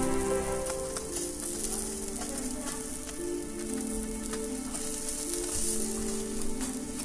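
Salmon skewers sizzling over binchotan charcoal, a steady hiss with scattered sharp crackles, under background music with long held notes.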